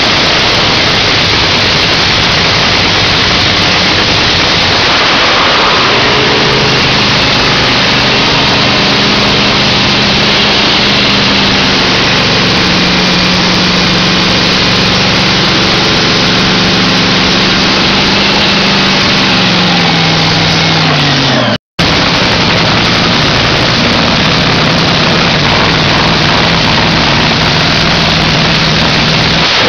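Nitromethane-burning supercharged Top Fuel Hemi engine running at a pit warm-up, extremely loud and distorting the microphone. Its pitch holds steady, then drops away about two-thirds through. After a brief break in the sound, a nitro engine runs steadily again.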